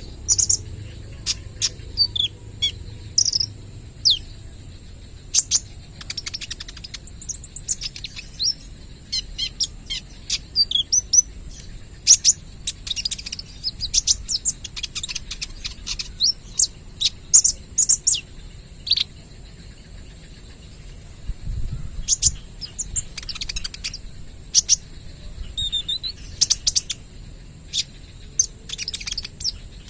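Kolibri ninja sunbird singing in rapid-fire bursts of sharp, high chips and short quick trills, over a steady high-pitched hiss.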